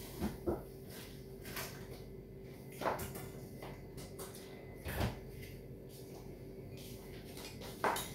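About half a dozen scattered soft knocks and clicks from household handling, the last as a bowl is picked up, over a faint steady hum.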